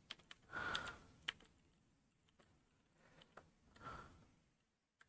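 Faint computer keyboard typing: a few scattered single keystrokes, with two short soft noises about half a second and four seconds in.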